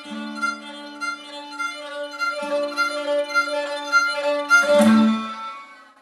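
Delodel, a luthier-made bowed string instrument, played with a bow over a held low drone, with a guitar accompanying. About four and a half seconds in a loud final chord sounds and rings out, fading away.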